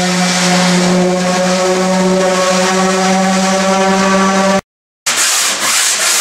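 A small power tool's motor running at one steady pitch, stopping abruptly about four and a half seconds in. Just after, a flat sanding block rubbing back and forth across the wooden strip-planked deck.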